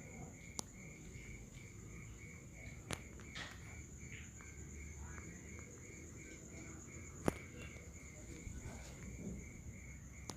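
Night insects trilling steadily: two continuous, finely pulsed trills, one high and one lower, with three sharp clicks about half a second, three seconds and seven seconds in.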